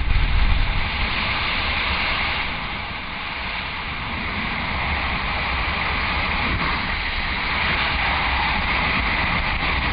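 Steady rush of wind over a helmet-mounted GoPro camera in wingsuit flight, dipping slightly about three seconds in.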